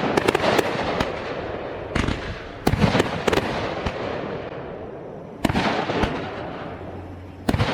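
Fireworks bursting overhead: about a dozen sharp bangs, some in quick clusters near the start and around three seconds in. Each bang fades into a rumbling echo.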